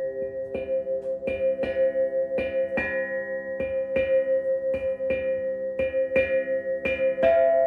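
Background music: a steady pattern of struck or plucked notes, about three a second, over a held drone, with a new higher note coming in and the music getting louder near the end.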